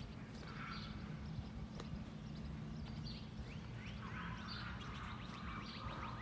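1991 Chevy Caprice's V8 idling, a steady low exhaust rumble. Small birds chirp in the background, most busily from about four seconds in.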